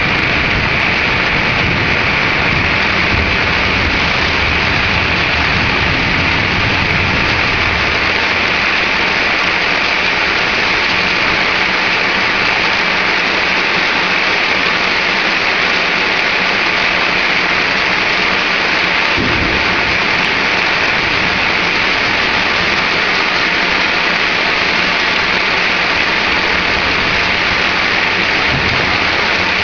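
Heavy thunderstorm rain pouring down, a loud steady hiss. A low rumble of thunder underneath fades out after several seconds.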